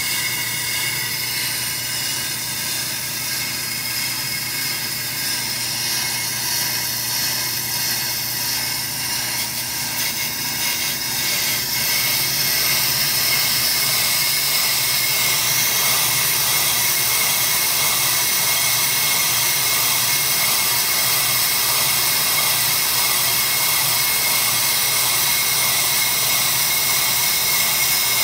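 AMMCO brake lathe making a fast cut across the face of a large brake rotor: the cutting bit's steady machining hiss with high whining tones over the lathe's hum. It gets louder about twelve seconds in.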